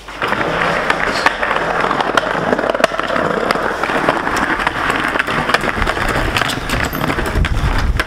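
Skateboard wheels rolling over tile and broken-stone paving: a steady, loud rattling rumble broken by many sharp clicks.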